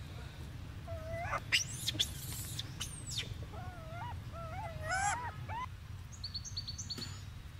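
Short, wavering, high-pitched animal calls in several quick runs, then a rapid series of thin high chirps near the end, over a steady low rumble.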